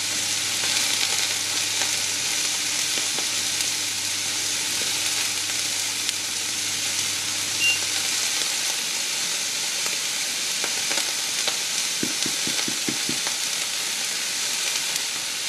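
Beef tenderloin steak searing in a smoking-hot frying pan: a steady sizzle. A faint low hum stops about eight seconds in, and a few soft knocks come around twelve seconds.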